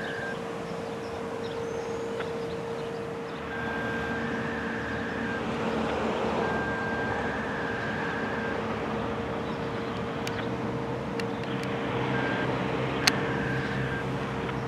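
ACA Hurricane 130 MKII rotating outdoor warning siren sounding a steady, unchanging tone, its higher notes swelling and fading about every three seconds as the rotating horn sweeps past. A single sharp click is heard about thirteen seconds in.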